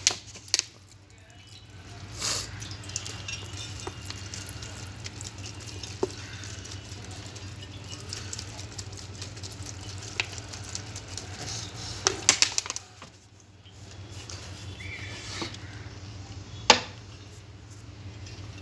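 Automatic transmission valve body being washed by hand in a pan of transmission fluid: fluid sloshing and splashing, with a few sharp knocks of the aluminium plate, over a steady low hum.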